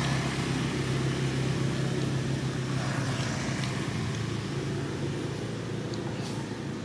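A motor vehicle engine running steadily as a low hum, with outdoor background noise, easing off slightly near the end.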